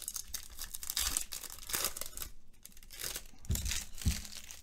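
Foil wrapper of a Panini Select football card pack being torn open and crinkled, a dense crackle for the first couple of seconds that then thins out. Two soft thumps follow in the second half.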